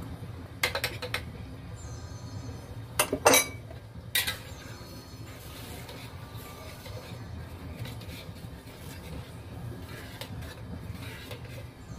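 Metal spoon and spatula clinking and scraping against a steel wok while sauce is added and the vegetables in their liquid are stirred. A few light clinks come in the first second and the loudest clinks about three seconds in, then softer scraping over a steady low hum.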